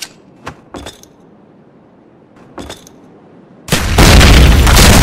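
Grenade explosion sound effect: a few short, sharp knocks, then a sudden loud blast about three and a half seconds in, its deep rumble carrying on.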